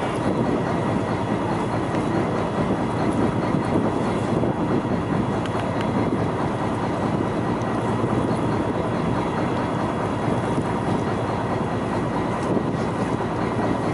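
Fishing boat's engine running, a steady, even drone with a faint constant hum on top.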